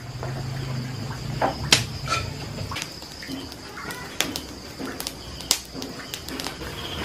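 Wood cooking fire crackling, with a few sharp pops from the burning firewood.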